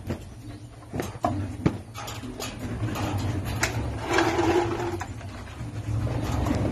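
A Belgian Malinois scrambling and jumping against a wire cage, its claws and body making several sharp clicks and knocks, with a short whine about four seconds in. A steady low hum runs underneath.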